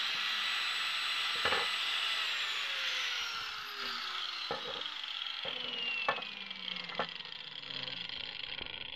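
Angle grinder whining down after being switched off: its pitch holds for about two seconds, then falls slowly as the disc spins down. A few sharp knocks come through it as the steel kukri blade is handled on the wooden block.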